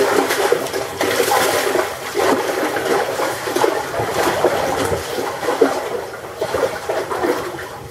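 Water splashing and fizzing continuously at the surface, many small irregular splashes overlapping, as machete fish tear into a school of sardines.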